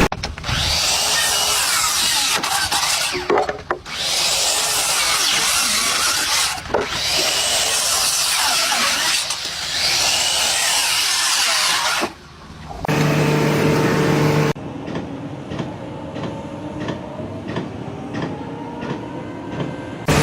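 Loud, harsh power-tool noise, like cutting or grinding, in long stretches broken by short gaps. After that comes a brief steady hum, then a quieter stretch of evenly spaced ticks.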